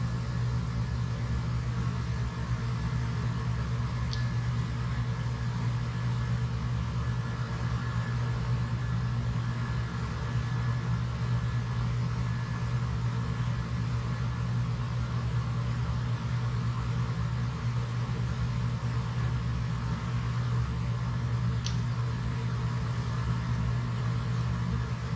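Steady low mechanical hum, unchanging throughout, with two faint clicks, one about four seconds in and one near the end.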